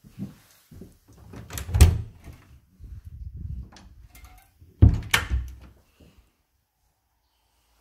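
An interior door with a round metal knob being opened, with two sharp knocks about two seconds in and again about five seconds in, and softer handling and rattling between them.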